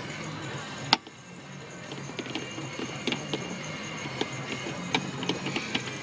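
Vehicle engine running with a low steady hum heard inside the cab, a sharp click about a second in, then scattered light clicks and rattles.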